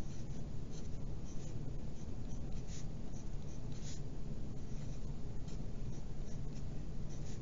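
Wooden pencil writing on a sheet of paper: short, irregular scratching strokes as small letters and bond lines are drawn, over a steady low hum.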